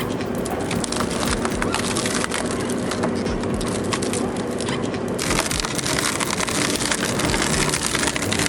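Wood shredder running with a steady motor hum while it chews through wood, giving dense cracking and splintering. The sound changes character about five seconds in.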